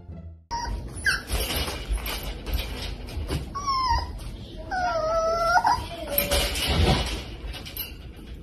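Puppy whining and whimpering in a wire crate: several short wavering cries, the longest held about a second near the middle, over rustling and knocking noise.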